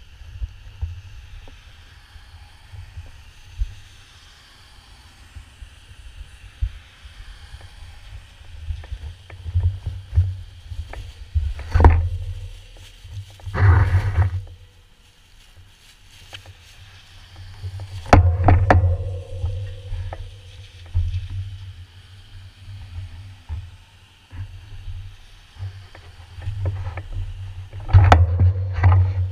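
Steady low rumble on a waterproof-cased GoPro's microphone, with louder swells as cars pass on the wet road. About fourteen seconds in, plastic sheeting rustles against the camera for about a second.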